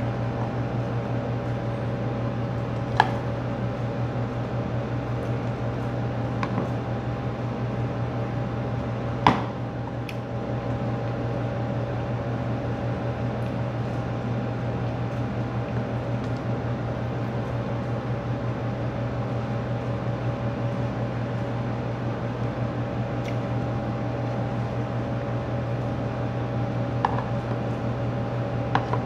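Window air conditioner running with a steady hum. A few sharp clinks of a metal spoon against a plastic food container break through it, the loudest about nine seconds in.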